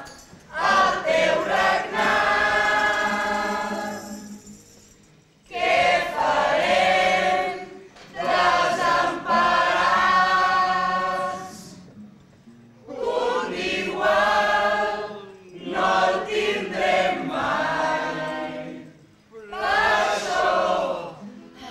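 Mixed amateur carnival choir singing in unison, in phrases a few seconds long with short breaks between them, accompanied by strummed acoustic guitars.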